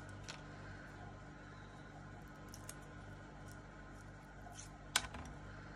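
Faint rustling and small clicks of paper card and foam pads being handled, with one sharper click about five seconds in.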